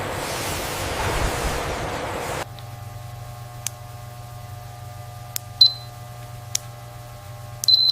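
Processing-plant machinery: a loud steady hiss that cuts off abruptly about two and a half seconds in, then a low steady machine hum with light clicks about once a second and two short high beeps.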